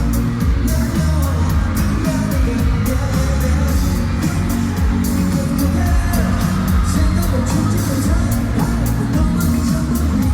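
K-pop song with singing over a heavy bass and a steady drum beat, played loud through a concert sound system.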